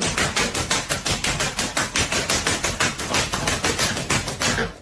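A fast, even rattle of sharp knocks, several a second, that stops near the end.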